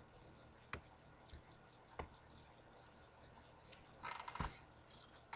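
Near silence with a few faint, sharp clicks spread out over several seconds and a short soft rustle a little after the middle.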